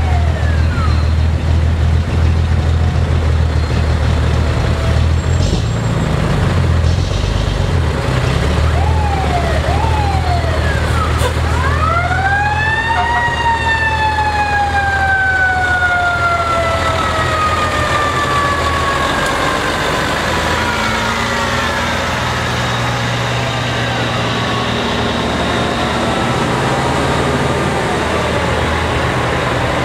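Heavy diesel semi trucks running and rolling slowly past, with a fire truck siren: a few short whoops about nine seconds in, then a wail that winds up about twelve seconds in and slowly falls away over several seconds.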